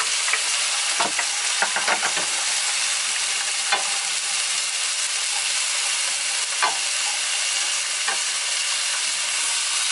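Balsamic-marinated flank steaks and green beans with onions sizzling in two frying pans, a steady hiss. A few short clicks of tongs against the pan come as the beans are stirred.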